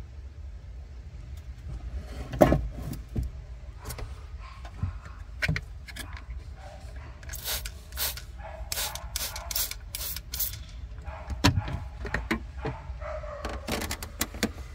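Hand spray bottle squirting soapy water onto the air-suspension compressor's fittings to check for leaks: a quick run of about seven short sprays around the middle, with scattered clicks and knocks from handling. A low steady hum runs underneath.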